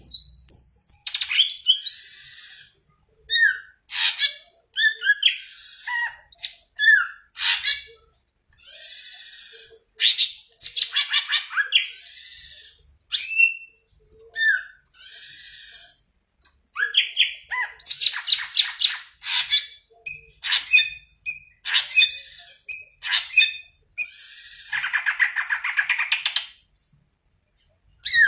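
Green leafbird (cucak ijo) singing a long, varied song: buzzy, rasping phrases about a second long alternate with sharp whistled notes, quick sweeps and rapid trills, broken by short pauses.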